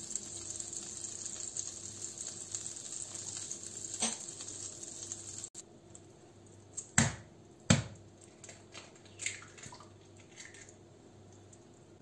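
Butter sizzling as it melts and foams in a hot nonstick frying pan, a steady hiss that stops abruptly about five and a half seconds in. Then come a few sharp knocks, the loudest two close together.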